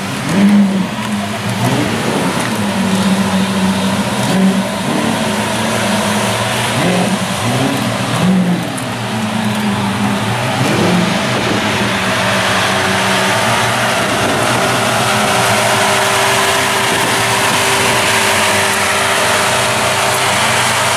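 Supercar engine idling, blipped in several short revs over the first ten seconds or so, then settling into a steady idle.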